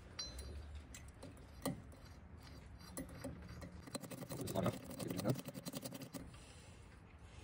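A hand ratchet clicking in quick runs as it turns the centre bolt of a bolt-type flywheel puller on a small engine's flywheel, with a few scattered metal knocks from the tool.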